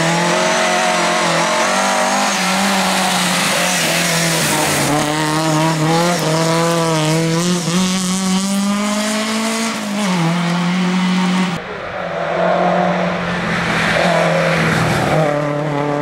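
Lada 2107 rally car's four-cylinder engine running hard at high revs, its pitch rising and falling with throttle and gear changes. The sound cuts abruptly about two-thirds of the way through to another pass of the same car under power.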